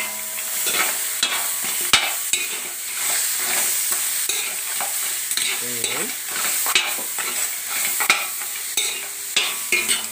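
Raw blue swimming crabs frying in butter with garlic, ginger, onion and lemongrass in a wok, sizzling steadily while a spatula stirs them, with frequent scrapes and knocks of the spatula against the pan and the crab shells.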